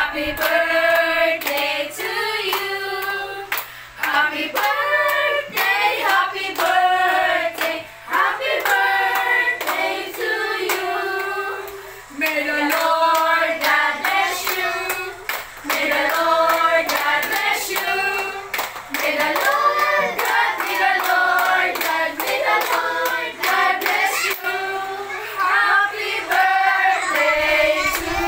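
A small group of men and women singing together, clapping along in a steady beat.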